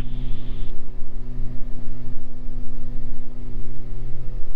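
Steady drone of a Beechcraft G58 Baron's twin six-cylinder engines and propellers at climb power, heard inside the cockpit.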